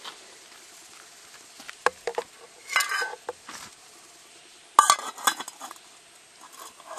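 Metal clinks and clatter of a lightweight camping cook pot and its lid. The lid is set down onto the pot, with the loudest clatter about five seconds in. Smaller clicks follow near the end as the pot's wire handles are handled.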